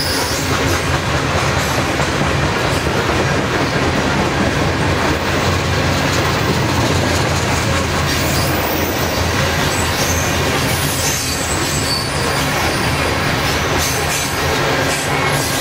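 Coal train's cars rolling past steadily: a constant rumble of steel wheels on the rails, with a faint high wheel squeal now and then.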